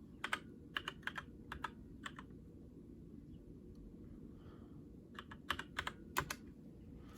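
Typing on a keyboard: short runs of faint keystroke clicks, one burst in the first two seconds and another around the sixth second.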